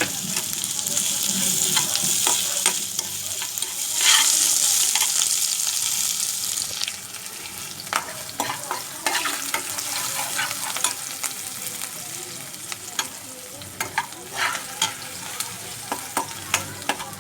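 Cumin seeds, ginger and garlic frying in hot oil in a kadai: loud sizzling, swelling about four seconds in, that eases after about seven seconds to a quieter sizzle broken by many sharp clicks and taps as the mixture is stirred.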